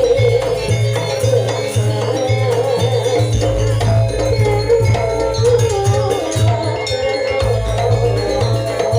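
Banyuwangi janger dance accompaniment music: a wavering melody line over a steady, repeating drum beat, with rattling percussion.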